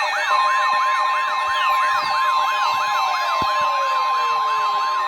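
NOAA Weather Radio 1050 Hz warning alarm tone, a steady single note that starts about a third of a second in and holds. Under it, a fast electronic wailing siren rises and falls about three times a second, with a few sliding tones dropping in pitch.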